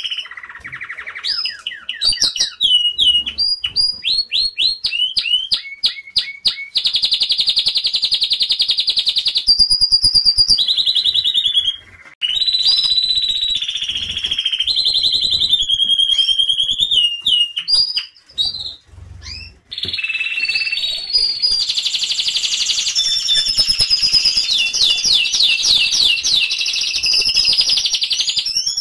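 Domestic canary singing a long, varied song of fast trills and rolls of rapidly repeated high notes, broken by a couple of brief pauses.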